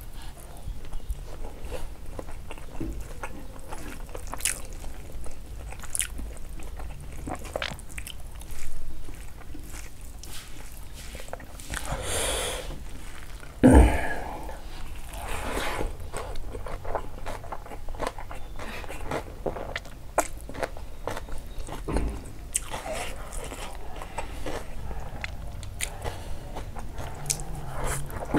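Close-miked chewing and biting of pork leg curry with rice, eaten by hand, with many small wet clicks from the mouth. There is one louder thump about halfway through.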